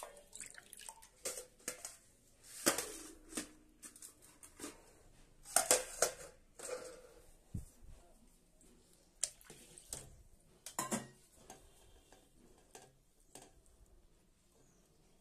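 Water being scooped with a steel tumbler from a steel pot and poured over rice in a steel bowl, with metal vessels clinking and water splashing and dripping as the rice is washed by hand. The sound comes as irregular clinks and splashes, loudest about three seconds in, around six seconds in, and near eleven seconds.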